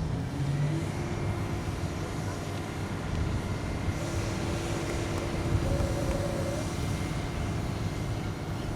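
Military helicopter in flight: a steady engine and rotor rumble with a faint, thin high whine.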